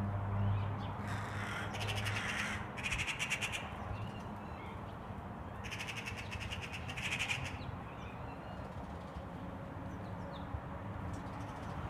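Harsh, rattling bird calls in several bursts over the first few seconds, then again around six to seven seconds in.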